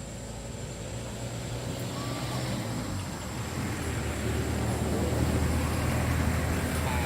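A motor vehicle's engine running with a low, steady hum that grows louder over several seconds, as if approaching.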